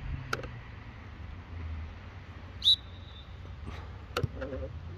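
A referee's whistle blown once about halfway through: a short, sharp, high blast that trails off briefly, signalling kick-off. A few scattered knocks around it.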